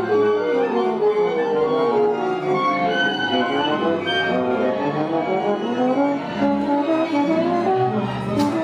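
Orchestra playing, many instruments at once with bowed strings (violins and cellos) most prominent.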